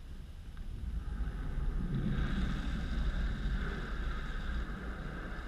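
Automatic car wash air dryer blowers running: a steady rush of air with a low rumble and a faint whine, growing louder about a second in as the car moves under them.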